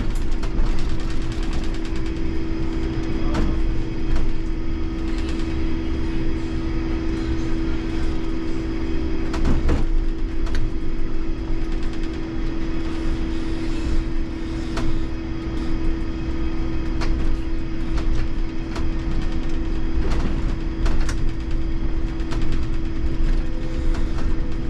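IMC Hess Lightram 19 DC electric trolleybus driving through city streets, heard from the driver's cab: a steady electric hum over road and body noise, with occasional short knocks and rattles.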